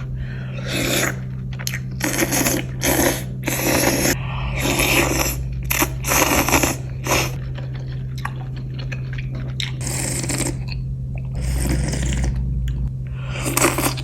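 Close-miked eating of spicy noodles with toppings: a dozen or so irregular bursts of chewing and crunching, over a steady low hum.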